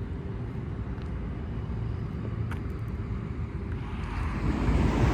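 Low, steady rumble of a car driving, heard from inside the cabin, growing louder with more hiss about four seconds in.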